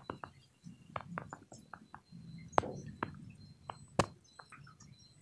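A scattering of sharp light clicks and taps at irregular intervals over a low background hum, with two louder ones about two and a half and four seconds in.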